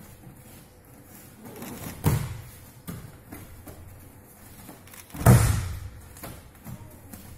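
Aikido breakfalls on padded mats: the thrown partner's body hitting the mat twice, a lighter thud about two seconds in and a heavier slam a little past five seconds, with softer knocks of feet and bodies on the mats between.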